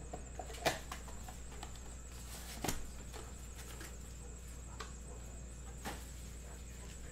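Foil trading-card packs and their cardboard box being handled on a table: a few sharp taps and light crinkles, the loudest about half a second in, with others near three and six seconds.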